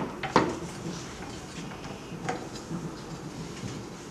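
A silicone cover being pressed by hand into the metal frame of a sublimation vacuum machine's plate: two sharp knocks right at the start, then a few lighter taps and handling noises.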